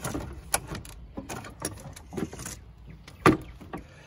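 A car battery's plastic case clicking and knocking against its tray and hold-down bracket as it is gripped and lifted out by hand, with one louder knock about three seconds in.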